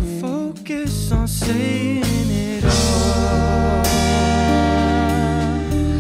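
Live band music: electric bass, electric guitar, drum kit and saxophone, with vocals over the top. The low end is sparse for the first couple of seconds, then the full band comes back in about two and a half seconds in.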